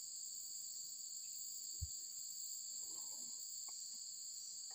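Steady shrill of an insect chorus, held in a few high, unbroken bands, with a single soft low thump about two seconds in.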